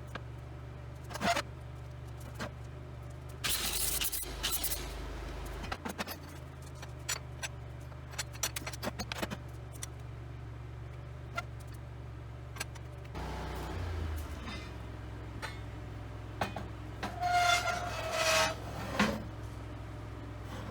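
Scrap-metal pieces clanking, knocking and scraping, with one piece ringing briefly near the end, over a steady low motor hum.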